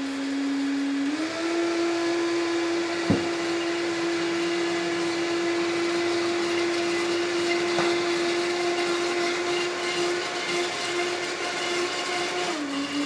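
High-powered countertop blender running steadily, blending a coconut yogurt mixture. Its motor pitch steps up about a second in and drops back near the end as it is turned down, with one sharp knock about three seconds in.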